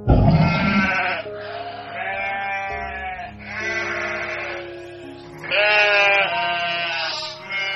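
Goats bleating, a series of calls each about a second long, over background music.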